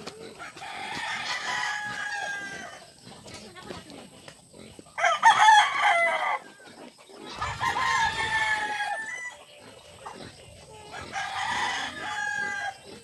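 Rooster crowing four times, each crow a long call of a second and a half to two seconds; the second crow, about five seconds in, is the loudest.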